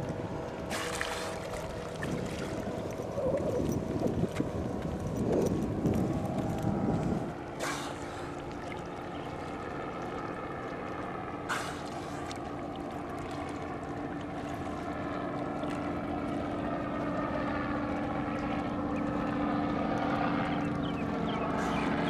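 A motorboat engine drones steadily from about a third of the way in. Gusts of wind rumble on the microphone during the first seconds. Three short, sharp puffs stand out: a bottlenose dolphin blowing as it surfaces to breathe.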